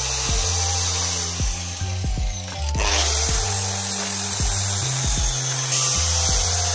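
Background music with a steady beat, over an angle grinder grinding down the steel end of a hydraulic jack's ram. The music is the louder of the two.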